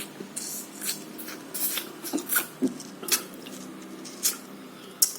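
A person eating pieces of fresh lime: a run of short, wet chewing and sucking noises, one every half second to a second, over a faint steady hum.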